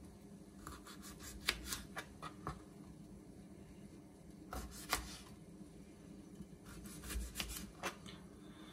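Small kitchen knife cutting limes into wedges on a plastic cutting board: faint taps and clicks as the blade goes through the fruit and meets the board, in three short clusters, with soft rubbing as the limes are handled.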